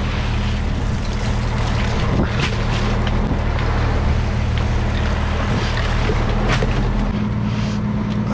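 Fishing boat's engine and deck machinery running with a steady low hum under a noisy wash, with a few sharp clanks or knocks; the low hum shifts about seven seconds in.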